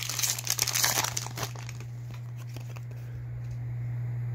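Crinkling of a shiny trading-card pack wrapper as it is torn open and peeled off the cards, lasting about the first second and a half, with a steady low hum underneath throughout.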